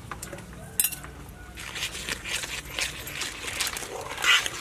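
Spoon mixing flour and water in a metal bowl, scraping and clinking against the bowl in quick, irregular strokes that grow louder near the end, with one sharp click about a second in.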